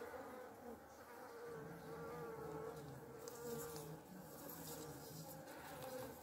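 Honey bees buzzing around a frame of comb lifted from an open hive: a faint, steady hum that wavers in pitch as bees fly close by.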